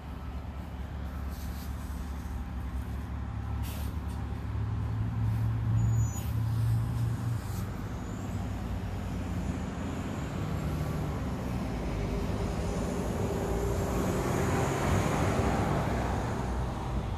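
Road traffic: a low, steady engine rumble, with a vehicle passing louder toward the end.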